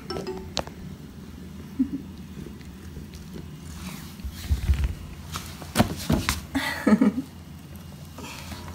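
A cat shifting about in a cardboard box: scattered knocks and scuffling rustles of paws against the cardboard, busiest in the second half, with a couple of brief low voice-like sounds.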